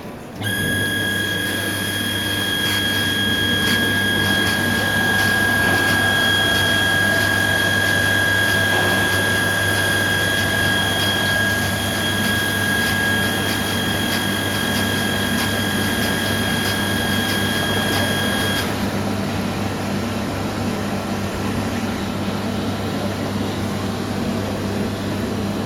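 Lamber L25-ek pass-through dishwasher running, its pump driving water through the spray arms with a steady hum. It starts suddenly about half a second in. A high steady whine rides on top until about 19 seconds in, then stops while the machine keeps running.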